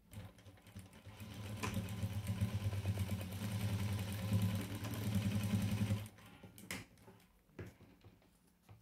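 Sewing machine stitching a seam through fabric scraps, a steady hum with a fast needle rhythm, which stops about six seconds in; a few sharp clicks follow.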